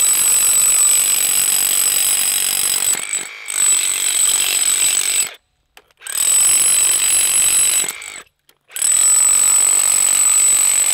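Milwaukee cordless rotary hammer in hammer-only mode, chipping concrete with a chisel bit: rapid hammering with a high whine on top. It runs in four stretches with short stops between.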